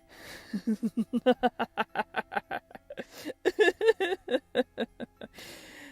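A woman's long laugh, a quick run of short 'ha' pulses that jumps higher in pitch about a second in, with a breath drawn in before it and after it.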